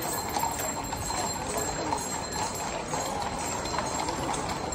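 Several horses' hooves clopping irregularly on a paved street as a mounted column walks past, over crowd chatter.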